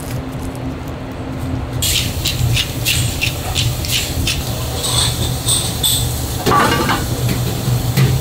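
Restaurant kitchen at work: a steady low hum of equipment or ventilation, with the clatter of utensils and dishes starting about two seconds in. There are repeated sharp knocks and clicks, and a ringing metallic clink or two near the middle.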